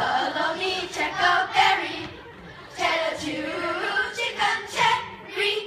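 A group of children's voices chanting a poem together in unison, in a sing-song way, with a short pause about two seconds in.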